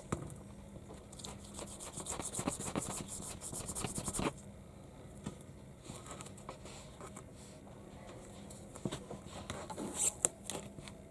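Fingers rubbing and pinching soft modelling clay on a tabletop: a fast crackly rubbing for a few seconds, then scattered soft clicks, with a short louder cluster near the end.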